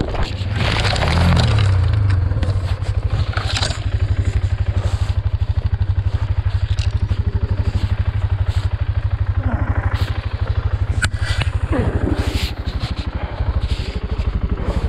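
BMW F650GS engine idling steadily with the bike down in the mud after a crash. A rush of scraping and crashing comes in the first couple of seconds, then a few scrapes and knocks.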